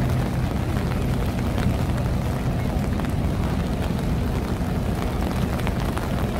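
Steady low rumble of outdoor city noise in the rain, heaviest in the bass, with a few faint ticks.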